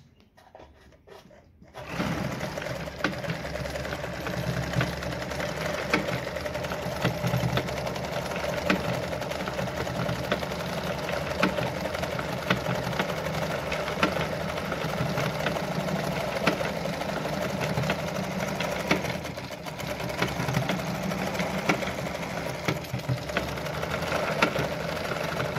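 Brother Pacesetter ZZ2-B702F electric sewing machine starting after a few soft clicks, about two seconds in, then running steadily. The needle stitches a decorative pattern stitch through denim with a fast, even ticking over the motor hum.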